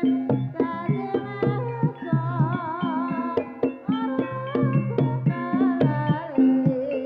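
Live Javanese ebeg (barongan) folk music: rapid hand-drum strokes under a wavering melody line with heavy vibrato.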